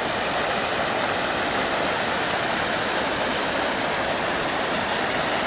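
Floodwater from a creek over its banks rushing across a lawn, a steady, even rush with no breaks.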